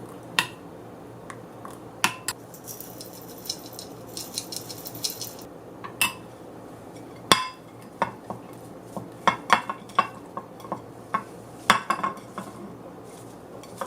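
Kitchen utensils clinking and scraping against dishes and a bowl in scattered knocks, with a few seconds of hissing about two seconds in.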